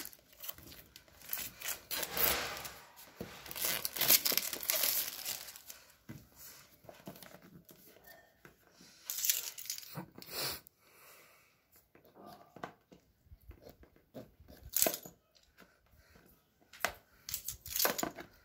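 A phone's retail packaging being torn open and its plastic wrap crinkled, in irregular rustling bursts: a long stretch in the first few seconds, then shorter bursts with pauses between them.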